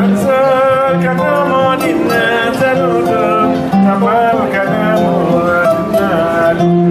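Kora, the West African gourd-bodied harp-lute, played live: plucked strings picking out a melody over repeated low notes.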